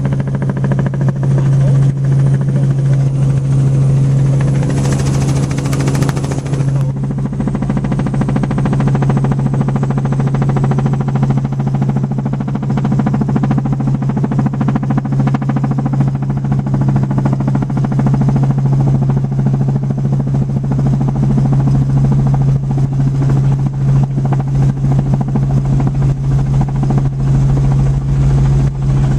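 Helicopter in flight heard from on board: a loud, steady drone of rotor and engine with a strong low hum, and a brief burst of hiss about five seconds in.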